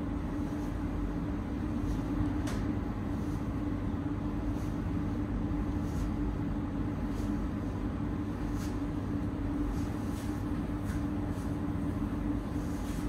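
Steady low mechanical hum of background noise, with faint short clicks now and then.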